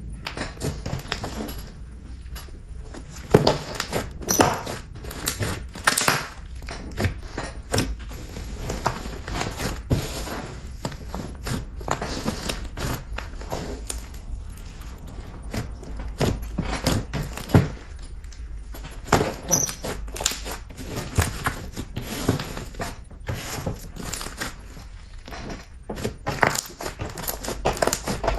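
Glossy slime being kneaded and pressed by hand, making a dense run of irregular sticky clicks and pops, over a steady low hum.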